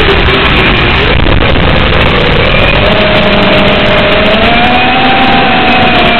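FPV freestyle quadcopter's brushless motors whining, the pitch dipping about a second in and then climbing as the throttle changes. It is heard through the onboard camera's microphone over the analog video link, under heavy hiss.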